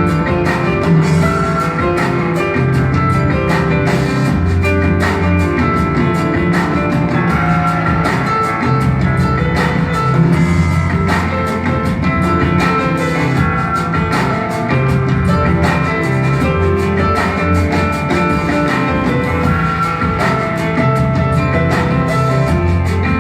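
Live band music with no singing: a drum kit keeps a steady beat under held, deep bass notes, with pitched instrument notes above.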